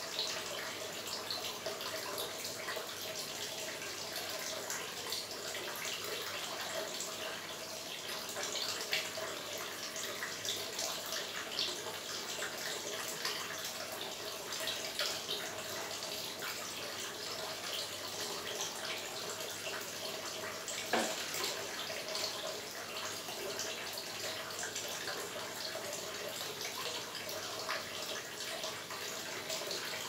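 Small tabletop water fountain trickling and splashing steadily as water spills over stacked terracotta saucers into a shallow pond, with fine dripping ticks throughout and one sharper tap about two-thirds of the way through.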